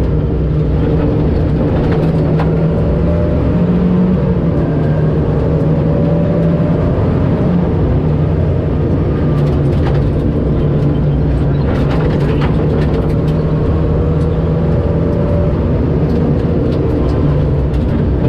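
Rally car's engine running at a fairly steady pitch under way on a gravel road, heard from inside the cabin, over a rumble of tyres on dirt with scattered clicks and knocks.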